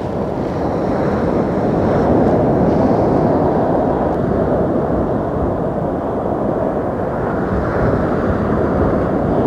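Sea waves breaking and washing up the shore, a steady rushing noise that swells over the first couple of seconds and then holds.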